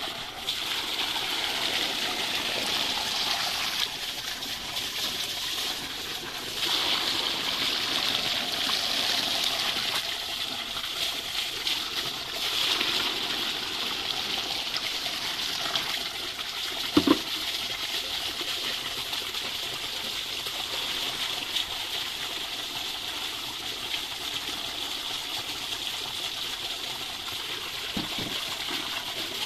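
Water poured into a wheelbarrow of sand, splashing and rushing in surges, as the cricket eggs are washed out of the sand they were laid in. A short knock sounds about halfway through.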